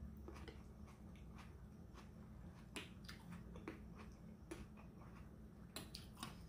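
Quiet eating sounds: chewing and scattered soft clicks of a mouth and a metal spoon scooping shrimp ceviche from a glass, with a few sharper clicks about three seconds in and near the end.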